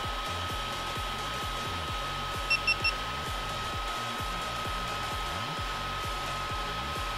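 Steady fan whir from a freshly powered-on Creality Ender 3D printer heating its bed, with a thin steady high whine. About two and a half seconds in, three short beeps as the GoPro mounted on the printer switches on.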